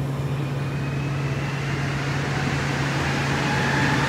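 Montreal metro train running through the station, a faint motor whine slowly rising in pitch over a steady low hum and running noise, growing louder near the end.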